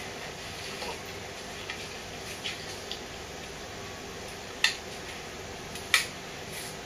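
Steady hiss with two sharp snaps about a second apart near the end, and a few fainter ticks.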